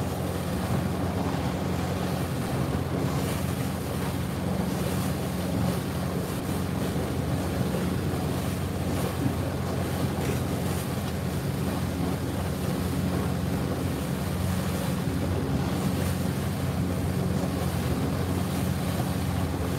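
A boat's engine running steadily as a low, even hum, under the rush of water and wind buffeting the microphone.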